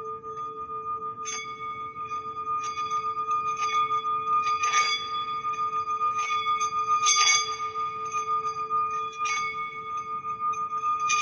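Singing bowl humming with a steady, slowly pulsing tone, with a higher ring sustained above it. A metal bell or bowl is struck about seven times at irregular intervals, each strike ringing with bright overtones, loudest about five and seven seconds in.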